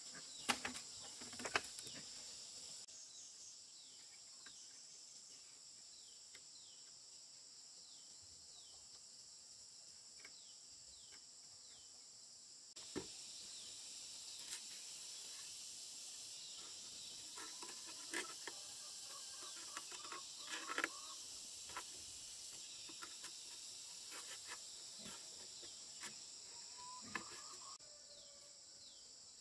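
A steady, high-pitched insect chorus, with scattered sharp knocks and clatters of bamboo poles being handled and laid onto a log frame. There are two knocks near the start and a busier run of them in the middle.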